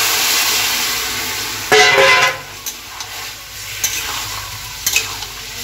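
Food poured into hot oil tempered with panch phoron, bay leaf and turmeric in a kadai, sizzling loudly at first, then fading to a steady fry with the odd clink of the spatula. A short, loud horn-like blast sounds about two seconds in.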